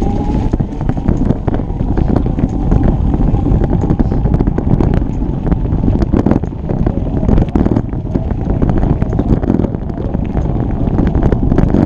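Wind buffeting the microphone while riding a bike on a trail, with frequent knocks and rattles from the bike over rough ground. A faint thin whine drifts slightly in pitch underneath.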